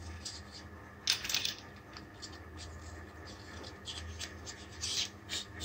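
Tail cap of a C8+-style metal flashlight being screwed onto its body to close the battery tube: a series of short, dry scraping rubs of threads and fingers on the knurled tube. The loudest rub comes about a second in, with more around four to five seconds.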